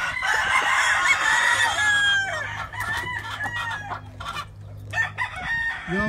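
Gamefowl roosters crowing and clucking, with one long, harsh crow in the first two seconds followed by shorter calls.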